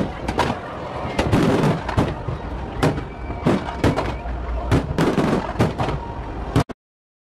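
Fireworks display: aerial shells and ground effects going off in an irregular string of sharp bangs, about two a second, over a continuous crackle and rumble. The sound cuts out abruptly to dead silence near the end.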